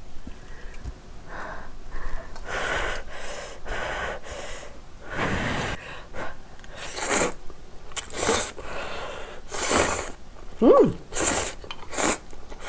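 A person slurping spicy instant ramyeon noodles off chopsticks: about five short, sharp slurps in the second half, after softer sounds of the noodles being stirred and lifted from the bowl.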